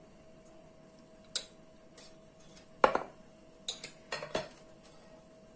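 Glass mixing bowls and a spoon clinking on a kitchen table: about five sharp knocks, the loudest just before the middle, with a quick cluster of lighter clinks toward the end as the emptied batter bowl is set down and a spoon goes into the bowl of battered chicken.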